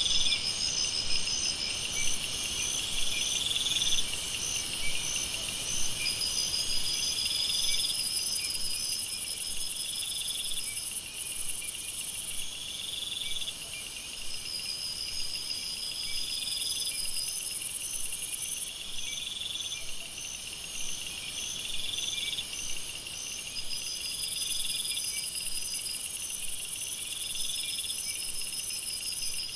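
Night-time jungle insect chorus: several kinds of insects calling over one another. A very high steady trill swells and drops away every few seconds, a regular pulsing chirp runs underneath, and a rising buzzy call repeats every second or two.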